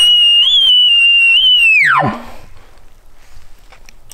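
Imitation bull elk bugle blown through a camo bugle tube: a loud, high whistling note held with a few small chirps, then sliding steeply down to a low tone and ending about two seconds in.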